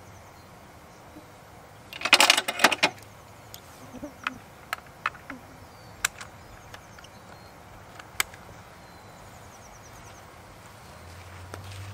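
Handling noise from a tripod-mounted crossbow and scope rig: a short burst of clattering about two seconds in, then a string of separate sharp clicks over the next several seconds.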